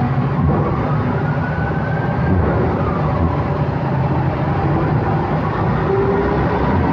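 Slow-moving heavy city traffic heard from a motorcycle. The engines of the bike and the surrounding vehicles run steadily under road noise, with a faint tone rising and then falling in pitch about a second in.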